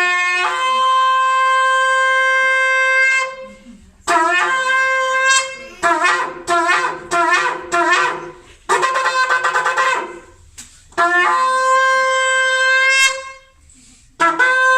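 Shofar blown in a series of loud blasts, sounded as a call of liberation: long held notes that each jump up to a higher pitch just after they start, with a quick run of short staccato blasts in the middle.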